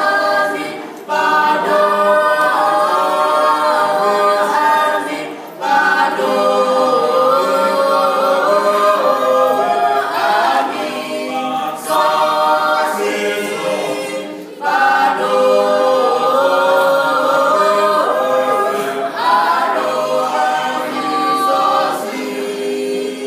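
A mixed vocal quartet of two men and two women singing a cappella in harmony, in long phrases with brief pauses between them.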